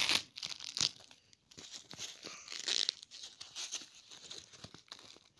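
Plastic packaging wrap being torn open and crinkled by hand, in short irregular rips and rustles.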